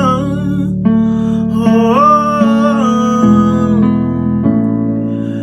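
Background music: a song with a plucked or strummed guitar and a singing voice holding long notes.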